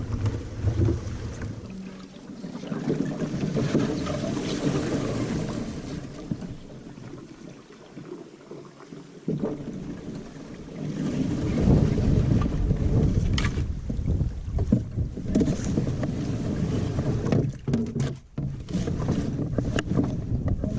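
Wind buffeting the microphone in uneven gusts, over the water sounds of a canoe being paddled, with a few sharp knocks in the second half.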